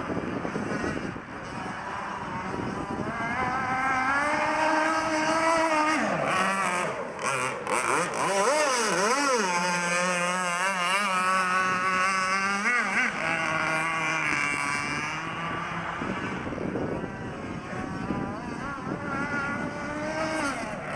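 Gas-powered RC boat's small engine running at speed, its pitch rising a few seconds in, wavering up and down, then holding high before dropping about two-thirds of the way through. A rougher, less even engine sound follows near the end.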